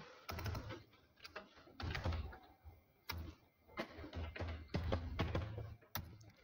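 Typing on a computer keyboard: faint, irregular keystroke clicks as a short word is entered.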